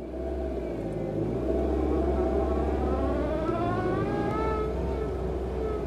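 Car reversing under its engine's low drone, with reverse-gear whine that climbs in pitch as the car picks up speed and then holds steady. The whine comes from the straight-cut (spur) reverse gears in the gearbox.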